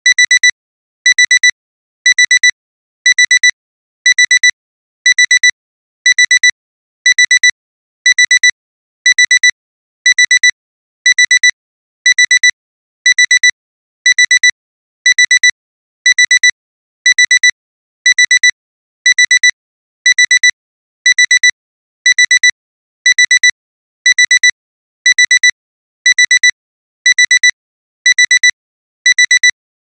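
Digital alarm clock beeping: a high electronic beep in quick clusters of about four, repeating about once a second without a break. It is the continuous alarm that signals the timer has run out.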